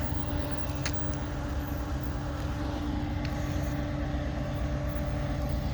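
Steady low rumble of an approaching slow freight train's diesel locomotive, with a steady drone over it and a faint click about a second in.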